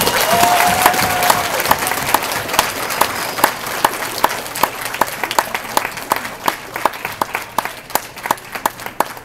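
An audience of students applauding, loudest at the start and thinning out gradually. One clapper close by keeps a steady beat of about two claps a second through it.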